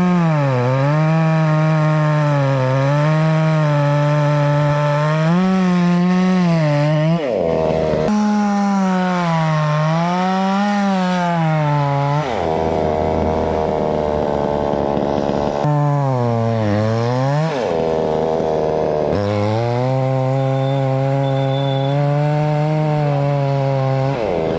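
Chainsaw cutting through wood, its engine pitch wavering as it loads up in the cut and dropping sharply several times when the revs fall back, then rising again.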